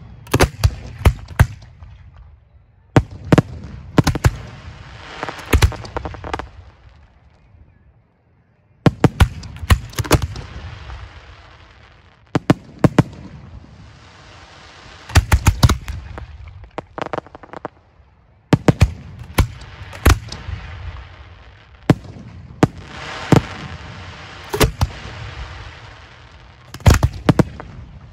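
Fireworks display shells firing from racks of mortar tubes at close range: sharp reports in quick clusters of several, each group trailing off in a fading rushing hiss, with brief lulls between.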